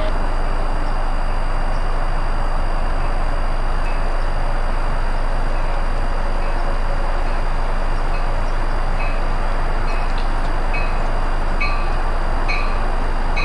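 Amtrak Keystone push-pull passenger train approaching on the electrified main line, with a steady rumble of wheels on rail. In the second half a bell dings about once a second, growing louder.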